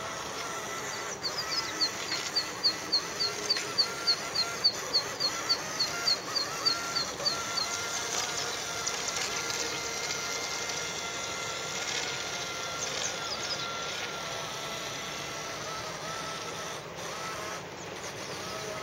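Paper RC boat's 540-class electric motor and air-blown propeller running steadily with a buzz like a bee or fly, its pitch wavering slightly. For the first seven seconds or so, a bird calls over it in a rapid run of short notes, about three a second, louder than the boat.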